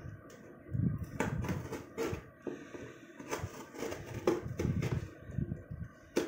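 Packing tape being picked at and peeled off a cardboard shipping box, with irregular scratches, clicks and rubbing on the cardboard.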